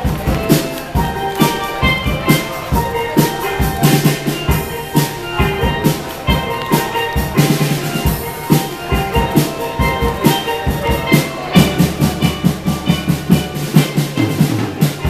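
A live steel band playing: two steel pans ringing out a bright melody over a steady drum-kit beat, with low bass notes underneath.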